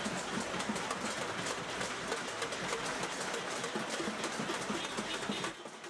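Many people banging on pots, pans and other household objects at once, a dense metallic clatter of overlapping strikes that cuts off suddenly near the end.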